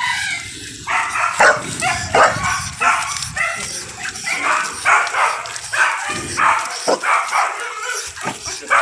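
A dog barking over and over in short, sharp barks, about two a second.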